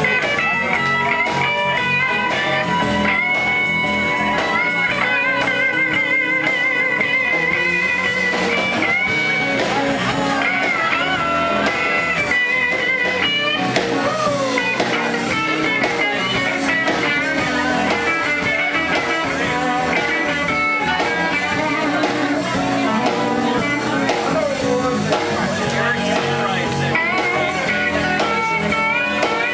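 Live electric blues band playing, with electric guitars, bass and drum kit. Long lead notes bend and waver over the band.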